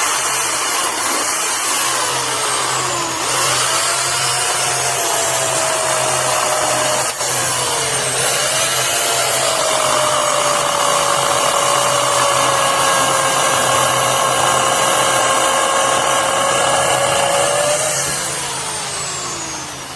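Craftsman 16-inch, 12-amp corded electric chainsaw running at full speed and cutting through a log. The motor's whine sags in pitch twice in the first several seconds as the chain bites into the wood, then holds steady through the cut. Near the end it winds down as the trigger is released.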